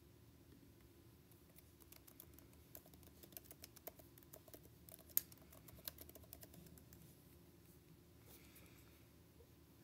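Faint typing on a computer keyboard: a run of quick, irregular key clicks lasting about five seconds, with one sharper click near the middle.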